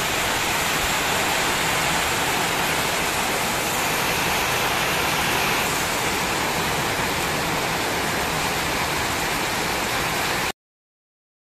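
Heavy wind-driven rain pouring down in a steady hiss, which cuts off suddenly about ten seconds in.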